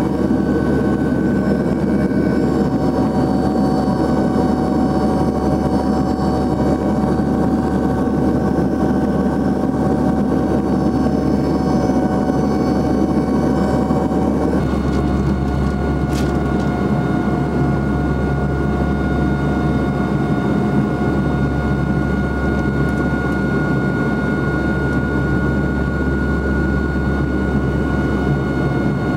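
Twin Rolls-Royce Dart turboprops of a YS-11 airliner, heard inside the cabin in flight: a steady drone with several high steady whining tones. About halfway through, the whine drops slightly in pitch and the low hum grows stronger.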